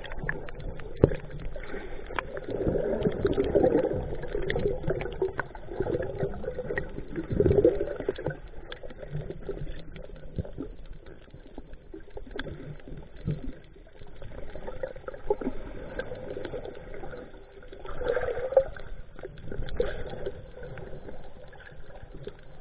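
Muffled underwater sound from a submerged GoPro: a low churning wash of water with scattered small clicks and knocks, swelling louder a few times.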